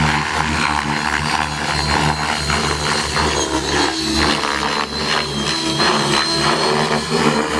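T-Rex 600E electric RC helicopter flying past and climbing away: rotor blades chopping the air over a steady high-pitched motor whine.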